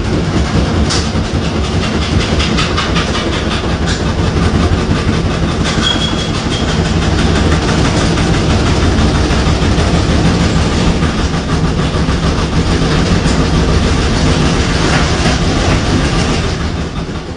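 Samsung washing machine running with a loud, continuous clattering rattle, easing off near the end. The owner takes it for a fault: a machine under three months old that walks, talks and squirts dirt from the bottom.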